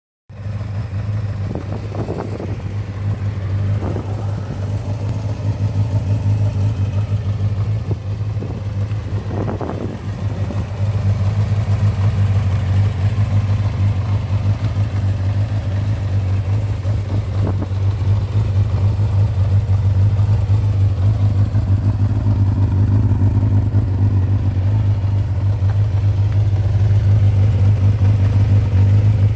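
Kawasaki GPz600R's inline-four engine running steadily through an aftermarket Yoshimura muffler, with a few brief louder moments. It grows a little louder about ten seconds in.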